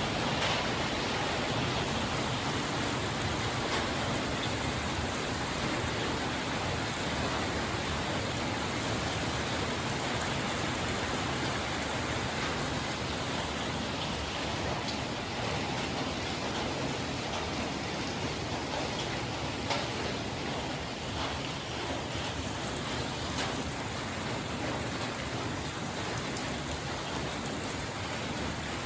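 Steady rain falling: an even hiss with a few sharper drop ticks.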